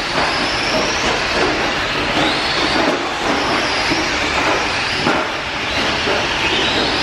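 A pack of radio-controlled race cars running on a dirt track: several electric motors whine, rising and falling in pitch as the cars speed up and slow down, over a steady rush of tyres on dirt.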